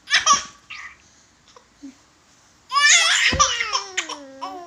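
A baby laughing: a couple of short bursts at the start, then, about three seconds in, a long high-pitched laugh whose pitch slides downward.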